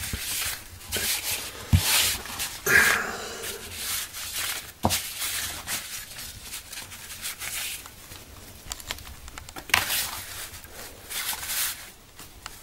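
Handling noise of camping gear being moved about on a fabric sheet: a run of short rustling, crinkling and scraping sounds with a few sharp knocks.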